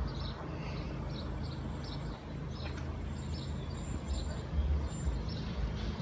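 Wind rumbling on the microphone, with a small bird chirping over and over, about two chirps a second.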